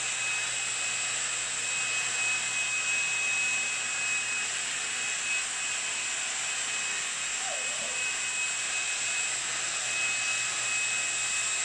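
LG A9 cordless stick vacuum running steadily, a rushing airflow with a constant high-pitched motor whine, as it is drawn across a tile floor.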